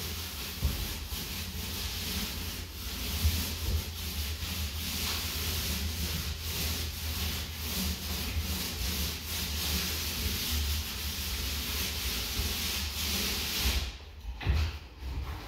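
Repeated rubbing strokes against a surface, a steady scratchy hiss that stops suddenly about fourteen seconds in, over a constant low rumble.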